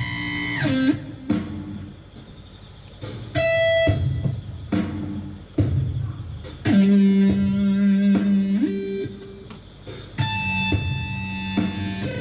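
Improvised electric guitar music: plucked notes ringing out and held, one bending down in pitch about half a second in, with sharp attacks a few times and quieter stretches between them.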